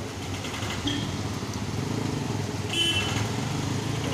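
Heavy rain falling onto a flooded street, a steady hiss, over a low rumble of motor traffic. A short high-pitched tone sounds about three seconds in.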